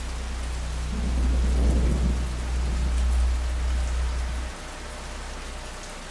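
Rain falling steadily, with a deep roll of thunder that swells about a second in and fades out at about four and a half seconds.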